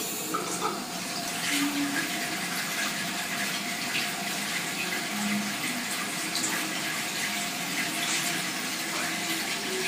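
Water running steadily from a bidet's mixer tap into its ceramic bowl, a thin stream splashing onto the porcelain.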